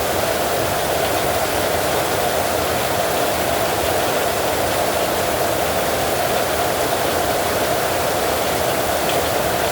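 Steady heavy rain: an even, unbroken hiss with no thunder.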